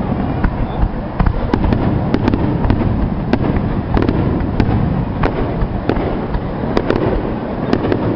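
Aerial firework shells bursting in quick succession: a continuous low rumble of booms with many sharp cracks and pops throughout.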